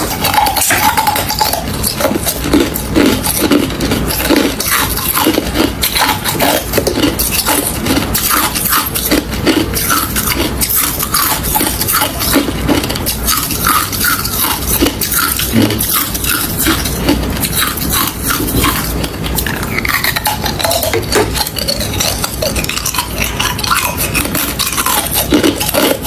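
Hard crushed ice being crunched close to the microphone: a dense, unbroken run of sharp cracks and clinks.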